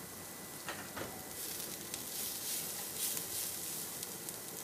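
Sliced onions, garlic and green chillies sizzling in oil in a nonstick frying pan as a wooden spatula stirs them: a steady high hiss, with a couple of faint clicks about a second in.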